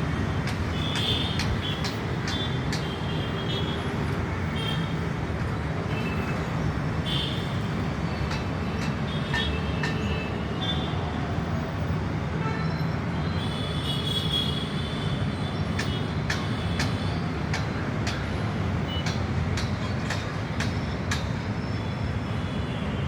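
Construction work: a steady machine drone with scattered sharp metallic clanks and short high-pitched squeaks throughout.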